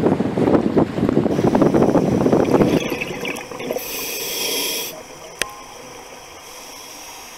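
Wind buffeting the microphone over the sea from a boat, which cuts off about three seconds in to a much quieter underwater recording with a hiss lasting about a second and a single sharp click.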